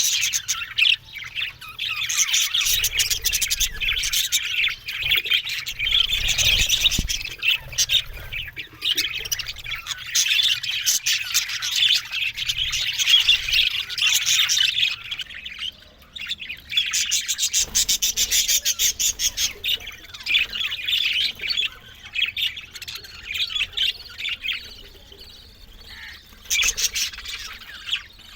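A group of budgerigars chattering, with rapid warbles, chirps and harsh squawks overlapping, quieter for a moment about halfway through and thinning out near the end.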